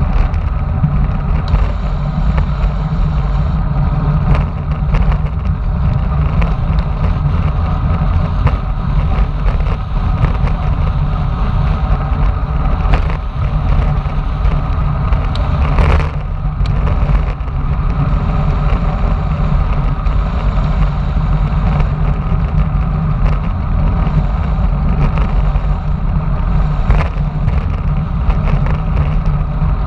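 Wind buffeting a bike-mounted camera's microphone on a fast road-bike descent: a steady, loud low rumble of rushing air and road noise, with a few knocks from bumps in the road, one about halfway through.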